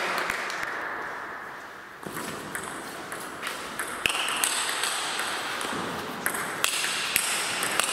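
Table tennis rally: the celluloid ball struck by rubber-faced bats and bouncing on the table, a string of sharp clicks starting about two seconds in and coming roughly two a second, echoing in a large hall.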